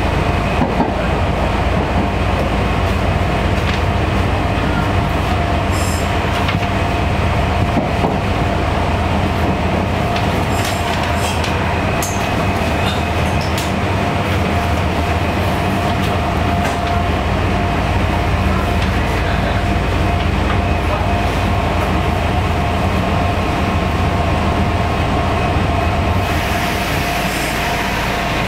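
Meitetsu Airport Line electric train running: a steady rumble with a steady whine through it, and a higher hiss that comes in near the end.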